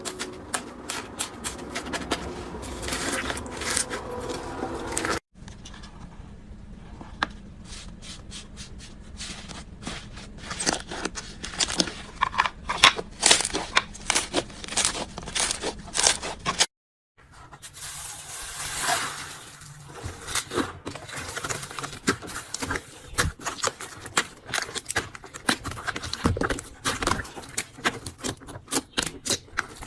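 Slime being squeezed, stretched and pressed by hand: a dense run of wet clicks, pops and crackles with some scraping. The sound changes abruptly about five seconds in, and again after a brief silence about seventeen seconds in, as one clip cuts to the next.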